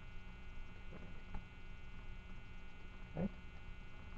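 Steady electrical mains hum in a webcam recording, with a brief low sound about three seconds in.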